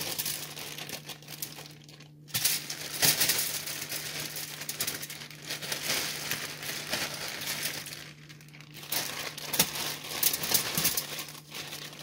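A thin plastic bread bag crinkling and rustling as it is shaken and squeezed, with a few lulls, while oiled cubes of butternut squash and apple tumble out onto foil-lined baking trays. A steady low hum runs underneath.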